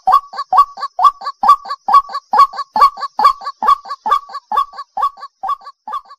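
Female white-breasted waterhen giving its 'ruak-ruak' call, a rapid, steady series of short croaking notes, about two strong notes a second with softer ones between, easing slightly near the end. This is the female's call to males, used as a lure call.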